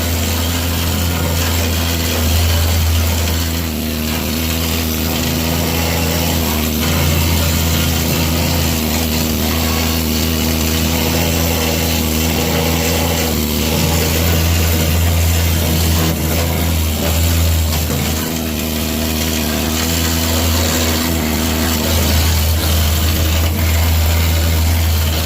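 Needle scaler hammering steadily, chipping rubberized undercoating off a car's steel floor pan.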